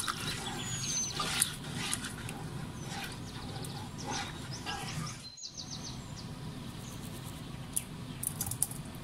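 Birds chirping, with a few short rapid trills and a falling whistle, over light scraping and tapping of a spatula stirring thick white sauce in a pot.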